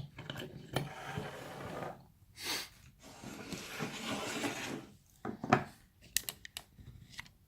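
Hands handling a freshly picked lock and lockpicking tools: a few seconds of rubbing and rustling, then several sharp clicks and knocks of metal parts.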